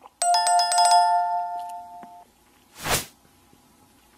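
A soft mouse click, then a bright bell chime of several quick strikes that rings and fades out over about two seconds: the notification-bell sound effect of an animated subscribe-button overlay. About three seconds in, a short whoosh.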